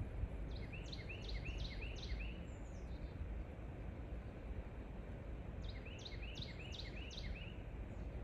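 A songbird singing twice, each phrase a quick run of five or six down-slurred whistled notes, over a steady low outdoor rumble.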